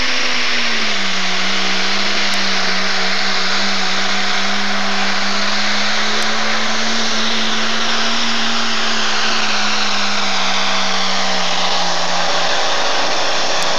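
Super stock pulling tractor's engine running flat out under load as it drags the sled down the track, a steady high-pitched note with heavy mechanical noise. Its pitch drops a little about a second in as the sled bears down, and again just before the end.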